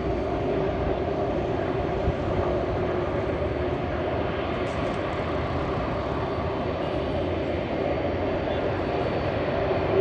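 Fixed-wing aircraft engines running steadily, an even noise with a low held tone and no change in level.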